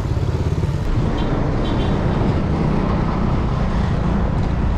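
Wind buffeting a GoPro action camera's microphone on a moving bicycle, over the steady rumble of road traffic. A couple of faint, short high chirps come between one and two seconds in.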